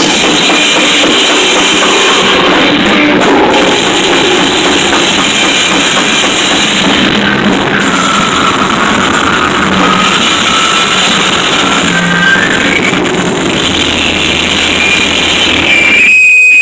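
Live noise music played very loud: a dense, unbroken wall of noise with faint shifting tones in it, which cuts off abruptly near the end.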